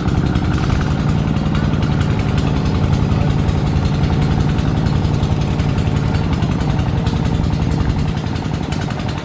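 Kubota horizontal single-cylinder diesel engine of a two-wheel walking tractor running steadily under load as it pulls a trailer of rice sacks, getting somewhat quieter near the end.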